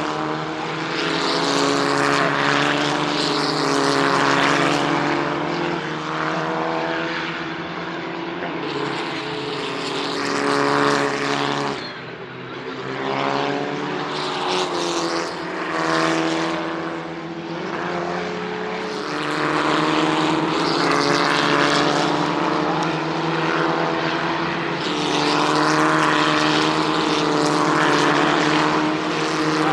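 Racing car engines running together as several cars pass in a group. Their overlapping notes hold steady and step up and down in pitch, with the sound swelling and fading as cars come by and a brief lull about twelve seconds in.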